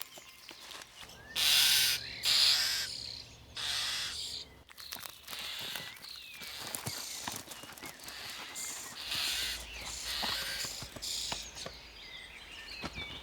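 Starlings giving a series of harsh, rasping calls, each about half a second long, with short chirps in between.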